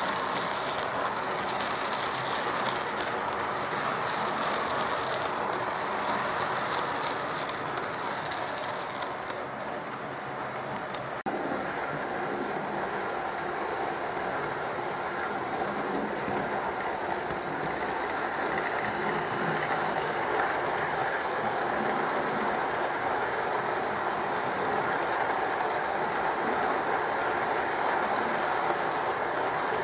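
Bachmann OO-gauge USA tank model locomotive running round the track with a train of eight coaches in tow, the wheels and coaches rolling steadily on the rails. It pulls the load easily at well under half power on the controller. The sound dips and then jumps back about eleven seconds in.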